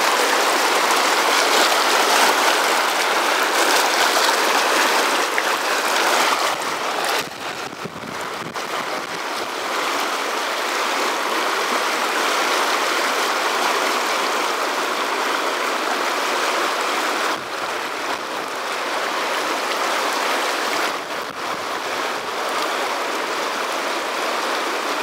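Small, fast mountain river tumbling over boulders in rocky pocket water: a steady, even rush of whitewater, dipping briefly in level a few times.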